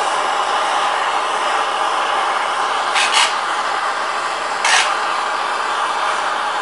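Hand-held gas soldering torch burning with a steady rushing hiss as its flame heats a copper seam for soldering. Three short, sharp louder bursts break in, two about three seconds in and one near five seconds.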